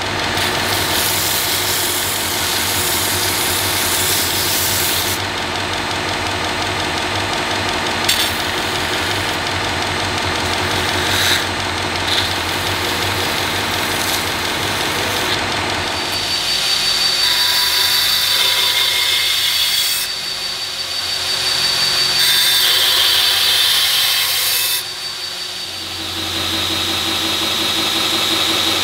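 Belt grinder running, its abrasive belt grinding a Damascus steel knife blade. The grinding sound shifts in pitch and level a few times as the work changes.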